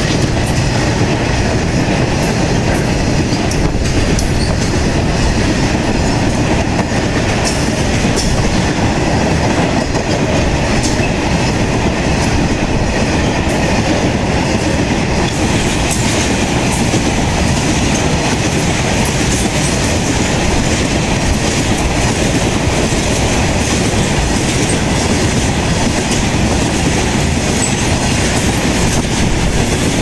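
A freight train of BTPN bogie tank wagons rolling past at speed, its wheels clattering over the rail joints in a steady, loud rumble with scattered sharp clicks.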